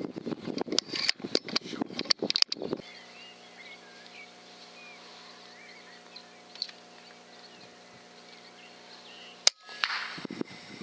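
Clicking and rustling for about the first three seconds, then quiet. About nine and a half seconds in, an FX Impact M3 .30 pre-charged pneumatic air rifle fires once with a single sharp crack, followed about half a second later by a brief duller noise.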